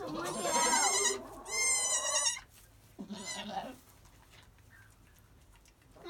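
Newborn Nigerian Dwarf goat kids bleating: three high-pitched, wavering bleats in the first four seconds.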